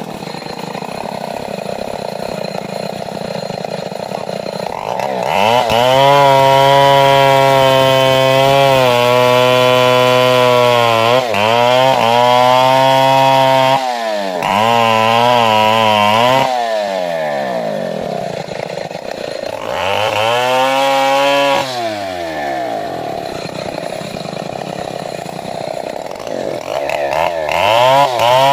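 Stihl 070 two-stroke chainsaw cutting wood: the engine revs up to full throttle and holds, sagging a little under load, then falls back toward idle and revs up again several times. It runs lower for a while before revving up once more near the end.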